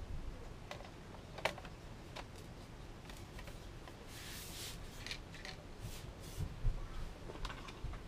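Faint handling sounds of a MacBook Pro's aluminium bottom case being fitted back on and pressed down by hand: scattered light clicks and taps, with a brief rubbing sound about four seconds in.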